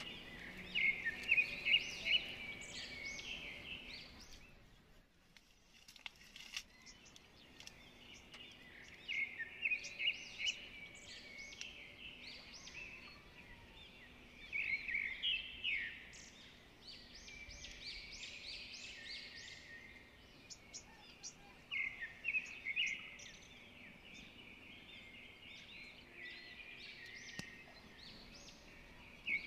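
Outdoor wildlife chirping: bouts of rapid, high-pitched chirps a few seconds long, coming back every few seconds over a faint steady background.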